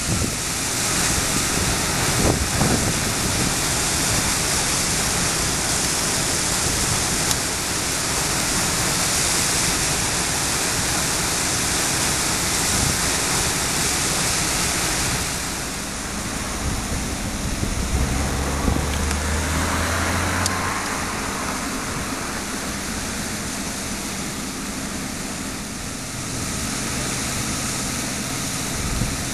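Steady rushing and splashing of a dredger's rainbowing jet, a stream of dredged spoil and water pouring from the bow nozzle into a harbour basin. A low drone joins for a couple of seconds a little past the middle.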